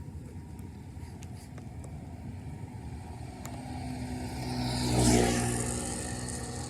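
A car drives past, building up to its loudest about five seconds in and then fading, with engine hum and tyre hiss.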